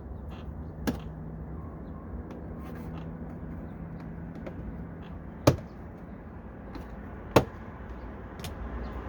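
Plastic door trim being pried off a 2002 Chevy Avalanche door with a plastic pry tool: a small click about a second in, then two loud sharp snaps about two seconds apart as the panel's clips pop loose, over a steady low hum.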